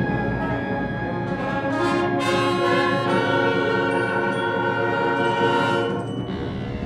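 Concert band playing sustained brass chords, with a cymbal swell and a shift to a new chord about two seconds in.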